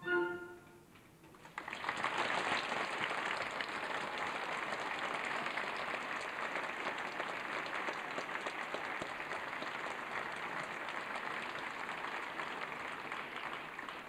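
The orchestra's last chord cuts off just after the start, and after a short pause a theatre audience breaks into steady applause that fades out near the end.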